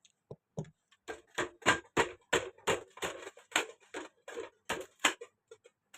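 A rapid series of sharp knocks, about three a second, starting about a second in and stopping shortly after five seconds.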